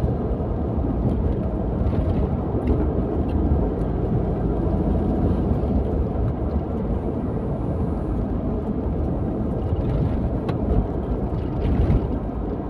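Road noise of a car being driven: a steady low rumble of engine and tyres.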